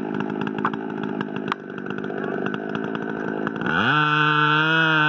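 Two-stroke chainsaw running at low throttle with a rough, uneven sound. About three and a half seconds in it is throttled up, the pitch rising quickly, then held at a steady high speed as it cuts at the base of the tree trunk.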